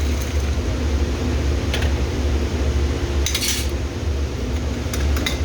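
Metal clinks and a short rattle as the parts of a grain moisture tester are handled after a corn sample has been dumped into it, over a steady low machine hum.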